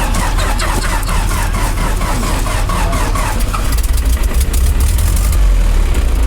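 Gas engine of a John Deere 2020 tractor running, its low hum growing much louder about three and a half seconds in.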